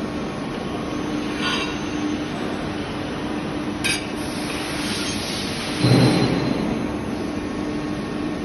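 CNC press brake running with a steady hum. Metallic clicks come about one and a half and four seconds in, and a heavier, louder thud follows about six seconds in.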